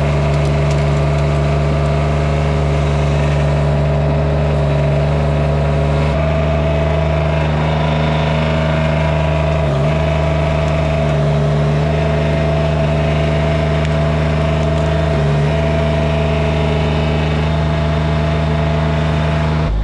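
An engine running steadily at a constant speed, with a few slight shifts in pitch.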